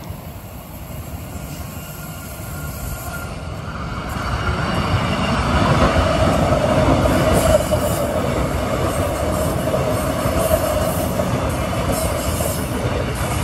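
A train running close by, growing louder over the first four seconds or so and then staying loud, with a steady pitched whine running through it.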